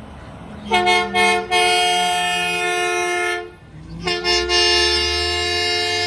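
Garbage truck horn sounding two long blasts, two notes together. The first blast opens with a couple of quick toots, and the second follows about half a second after the first stops. A low rumble runs underneath.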